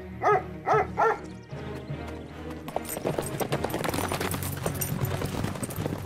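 A cartoon dog barks three times in quick succession, short eager barks as it is sent off to track a scent. The barks give way to background music with a busy patter of light clicks.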